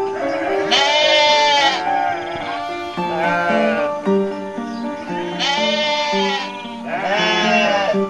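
A goat bleating four times, each a loud wavering call of about a second, over a background music track of short stepping notes.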